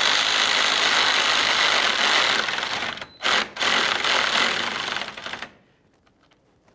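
Electric power tool running to snug up a 10 mm mounting bolt on the grille shutter, in two runs of a few seconds with a brief stop about three seconds in, and stopping near the end.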